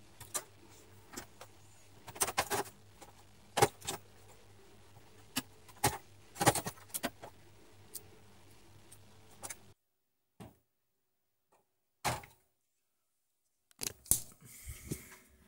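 Irregular clicks, knocks and rattles of a CRT television's chassis board and plastic cabinet parts being handled and slid out, over a steady low hum that cuts off suddenly about two-thirds of the way in.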